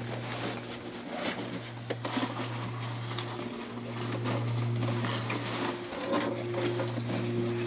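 Clothing and gear rustling with light knocks and clicks on wooden boards as a hunter moves about inside a small wooden hunting blind. A steady low hum runs underneath, breaking off briefly every couple of seconds.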